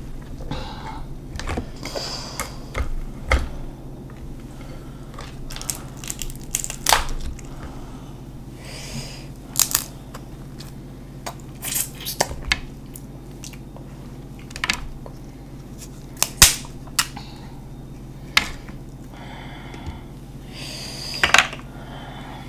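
Close-miked eating sounds: boiled crab leg shells cracked and snapped by hand, with chewing and a fork clicking. Irregular sharp cracks and clicks come every second or two.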